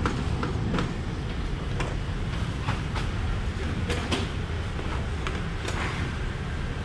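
Scattered sharp knocks of a knife cutting a melon on a plastic cutting board, about ten in all, over a steady low rumble.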